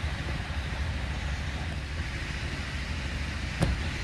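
Steady outdoor background noise, a low rumble under an even hiss, with one sharp click about three and a half seconds in.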